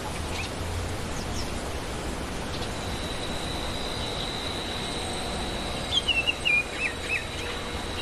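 Baltimore oriole singing a short phrase of clear whistled notes about six seconds in, over steady background noise and a thin, steady high tone.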